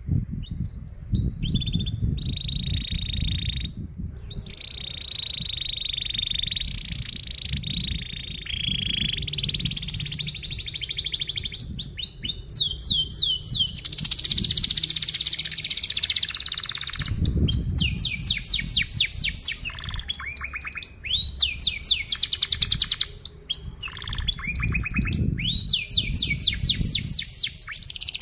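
Domestic canary singing a long, unbroken song of tight rolls: sustained trills in the first half, then fast runs of repeated sweeping notes.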